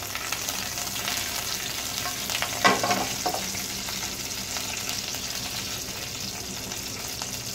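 Curry leaves sizzling in hot oil with popped mustard seeds in a frying pan, the tempering (thalippu) step. There is a single sharp crack about two and a half seconds in.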